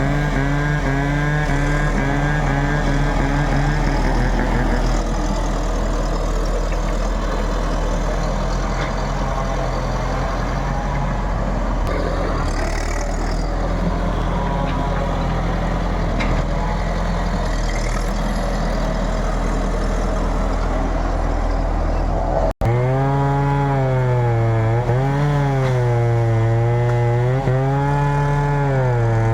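Backhoe's diesel engine running at a steady pitch. After a sudden break about two-thirds through, its pitch rises and falls every couple of seconds as the machine works.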